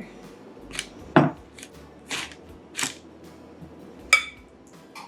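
Kitchen dishes and utensils being handled: scattered knocks, several brief scraping strokes, and a sharp clink that rings briefly about four seconds in.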